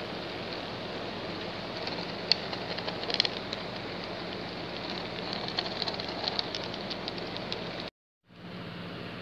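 HO-scale model freight train rolling past on layout track: a steady whir with scattered sharp little clicks of the wheels over rail joints and turnouts. The sound drops out briefly near the end.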